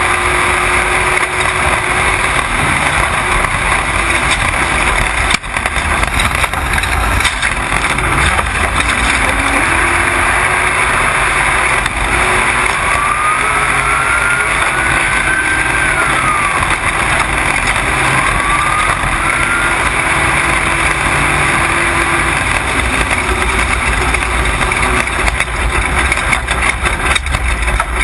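Off-road race truck driven hard at speed, engine running under load and buried in heavy wind and dirt-road noise. The engine's pitch drifts up and down as the driver accelerates and lifts, with a faint rising-and-falling whine around the middle.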